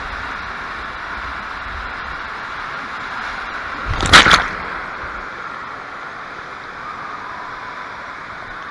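Rushing water on an indoor tube water slide, a steady hiss, with a loud splash about four seconds in as the tube shoots out of the slide into the landing pool.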